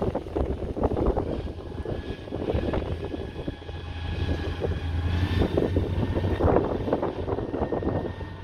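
Motor grader's diesel engine running with a steady low drone as the machine works along a dirt track, its blade scraping and pushing soil.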